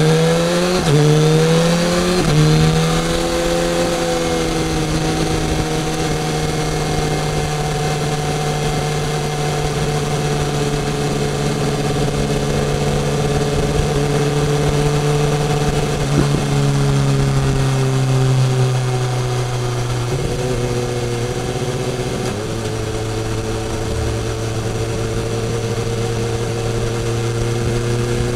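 BMW S1000R's inline-four engine accelerating through two quick upshifts, its pitch climbing and dropping back at each shift in the first few seconds. It then holds a steady cruise, the pitch drifting only slowly, over a constant rush of noise.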